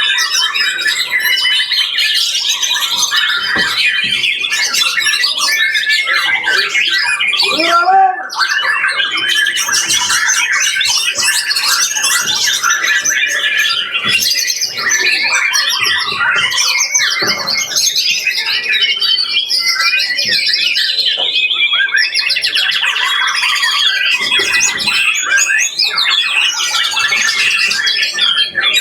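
Many caged songbirds singing at once, a dense, continuous mix of fast trills, chatter and whistles.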